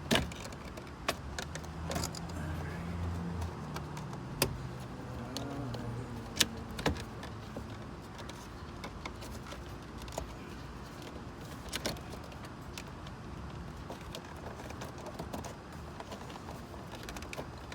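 Plastic dashboard trim around a Honda Civic instrument cluster being handled and pressed into place: scattered sharp clicks and knocks. A low hum sounds from about one and a half to five seconds in.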